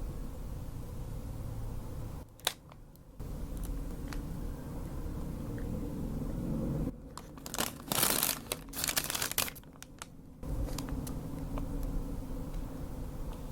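Paper food packaging crinkling and rustling in a burst of several seconds past the middle, after a single sharp click, over a steady low room hum.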